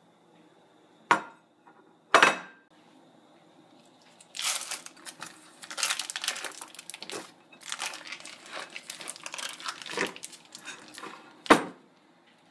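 A glass pie dish knocks twice against a kitchen countertop as it is set down. Then the foil wrapper of a block of cream cheese crinkles as it is peeled open over the dish, with one more sharp knock near the end.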